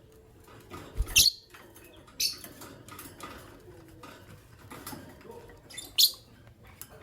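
Caged lovebirds giving three short, shrill chirps, about a second in, two seconds in and near the end. A low thump comes just before the first chirp, and faint scattered ticks run between the calls.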